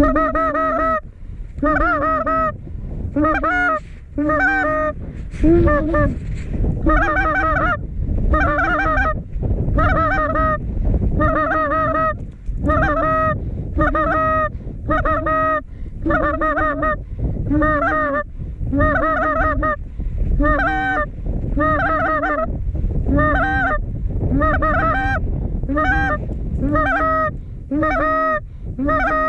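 Goose honks repeated steadily about once a second, each call much like the last, over a low rumble of wind on the microphone.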